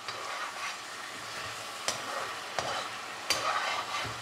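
Chicken wings sizzling as they brown in their own juices in a pot with no liquid added, while a spoon stirs them. The spoon clacks sharply against the pot three times, starting a little under two seconds in.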